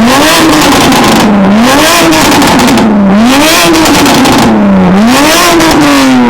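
Car engine revved repeatedly, its pitch climbing and falling back about four times, roughly once every second and a half.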